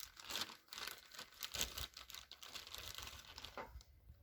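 Crinkly plastic rustling and irregular light clicks of hands handling a small bag of grease and small hammer-drill parts.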